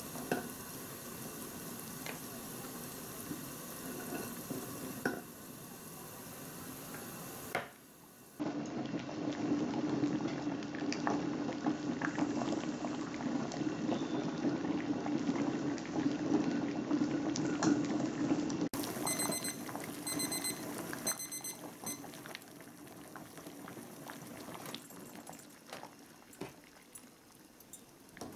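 Water at a rolling boil around eggs in a pot, bubbling steadily, with light knocks as a ladle turns the eggs. About two-thirds of the way through, a digital kitchen timer beeps in quick pulses for a couple of seconds.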